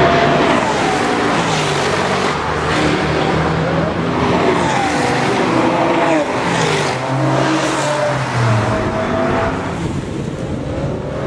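BMW M5 Touring (E61)'s V10 engine revving hard, its pitch climbing and dropping again and again as the throttle is worked.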